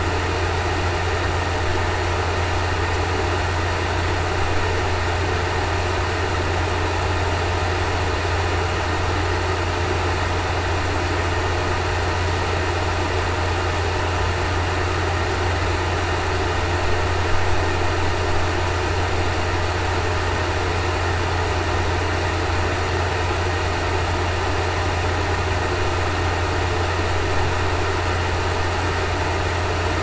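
A 3 kVA Axpert-type hybrid inverter running on battery while powering a load. It gives a steady low hum with an even hiss over it and a faint steady whine, unchanging throughout.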